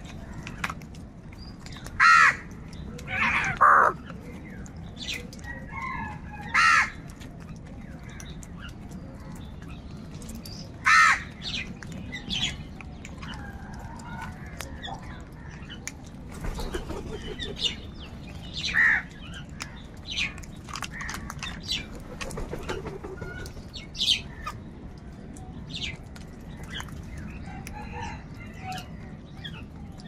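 A flock of house crows calling around a food bowl: single caws at irregular intervals, several loud ones in the first dozen seconds and fainter calls scattered through the rest.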